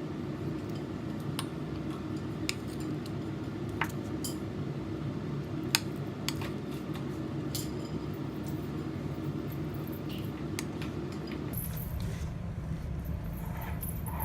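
Metal spoon clinking and tapping against a batter bowl and cupcake moulds as batter is spooned in: scattered sharp taps, one every second or so, over a steady low hum that stops about eleven and a half seconds in.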